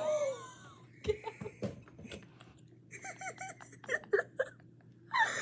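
Girls giggling and laughing in short bursts, including a quick run of laughs partway through, with a few light knocks in between.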